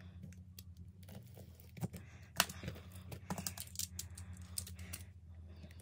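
Irregular light clicks and taps from hands and a box cutter working at the plastic shrink wrap on an album box, over a steady low hum.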